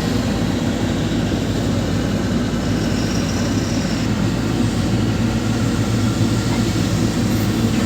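Heavy diesel machinery engine running steadily, with a faint high whine about three seconds in.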